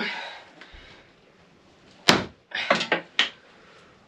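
Several sharp hammer knocks on a copper boat nail, heard through the wooden hull and frame: about five blows in quick succession a couple of seconds in, the first the loudest. A brief rustle comes right at the start.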